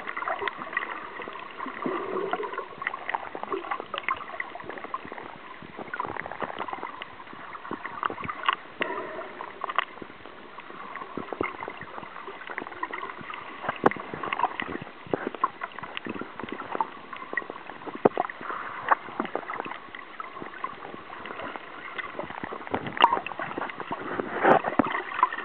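Water sounds picked up by a snorkeler's camera underwater or at the surface: muffled gurgling and sloshing, scattered with many small clicks and crackles.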